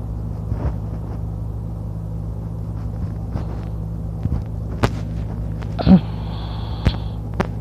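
A man sleeping on his back with his mouth open, breathing through a snore about six seconds in: a short low snort followed by a hissy breath of about a second and a half. Under it runs a steady low hum, with a few faint clicks.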